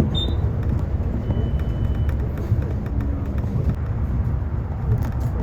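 Low, steady rumble of a vehicle, with a faint high blip just after the start and a brief thin tone about a second and a half in.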